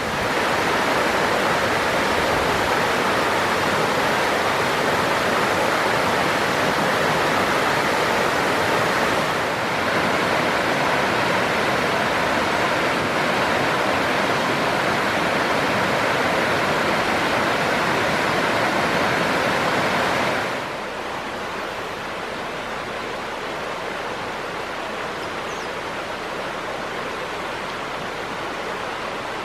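Waterfall: a steady rush of falling water. About 20 seconds in it becomes quieter and duller.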